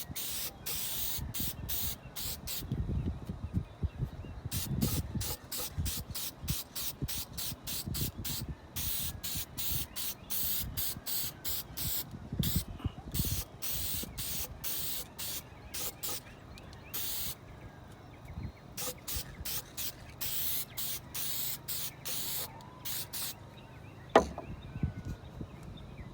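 Aerosol can of clear lacquer spraying in many short bursts, some brief puffs and some held for a second or more, as a coat goes onto a magazine. One sharp click near the end.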